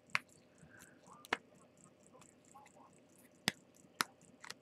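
A white paper mail envelope handled while being worked open: several sharp, short paper clicks and crackles, spread out, with faint rustling between them.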